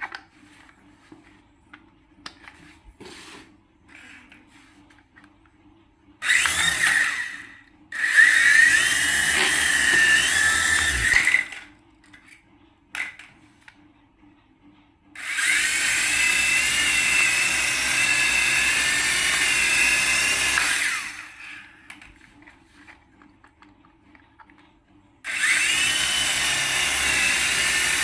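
Small electric motor of a radio-control toy whirring up in bursts: four spin-ups of a high, steady whine, each rising quickly in pitch as it starts and cutting off after one to five seconds, with faint clicks in the pauses.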